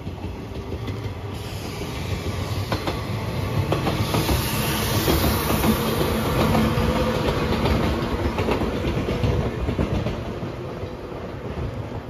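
Yellow JR 115-series electric train passing, its wheels clattering over the rail joints. The rumble swells to its loudest around the middle and fades as the train moves off.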